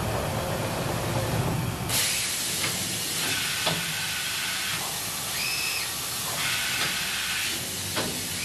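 Mori Seiki NT6600 multi-axis CNC turning center running with a low hum, then a steady hiss that cuts in suddenly about two seconds in. A few sharp clicks and brief high tones sound over the hiss.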